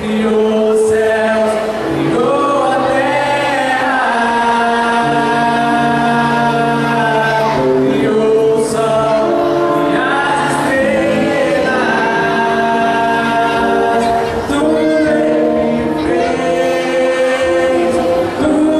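A man singing a gospel worship song into a handheld microphone, amplified through a PA loudspeaker, with long held notes over sustained backing chords.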